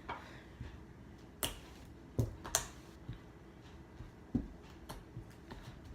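Slime being poked and squeezed by hand, giving irregular sharp clicks and pops several times over.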